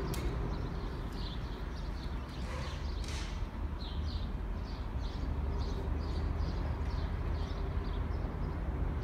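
A bird chirping over and over, short high notes about two a second, over a low steady rumble.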